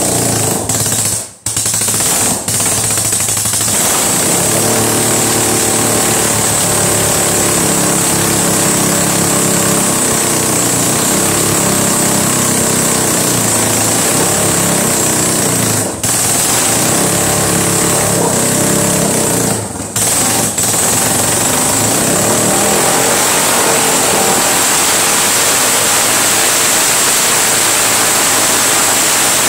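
1976 Honda CB360's air-cooled parallel-twin engine running loudly at its first start-up, a rapid rough firing whose speed rises and falls as the throttle is worked. The sound drops out briefly three times: once about a second and a half in, and twice more past the middle.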